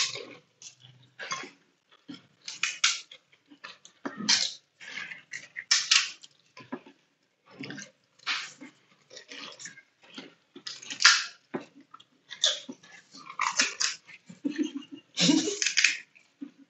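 Two people eating pani puri with mouths full: irregular chewing, crunching of the crisp hollow shells and slurping of the spiced water, with the occasional crack of a shell broken open by fingers.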